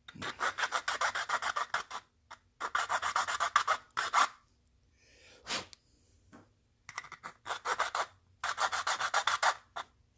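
Hand file rasping an edge of a cell phone mount's bracket, in quick short strokes. It comes in four bursts with brief pauses between them.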